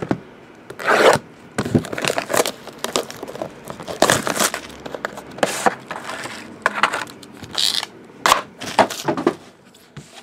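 Plastic shrink wrap being slit, torn and crinkled off a cardboard trading-card box, with the box scraping and knocking on the table in irregular bursts.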